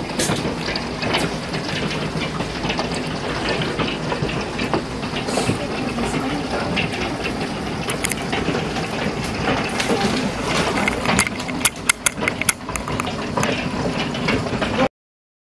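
Large hailstones, marble to golf-ball size, pelting pavement and parked cars: a steady clatter of many sharp hits over a dense hiss, with a flurry of louder hits near the end. The sound cuts off suddenly shortly before the end.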